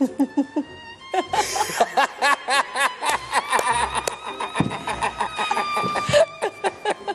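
Hearty adult laughter, rapid repeated bursts, over light background music with a held note in the middle.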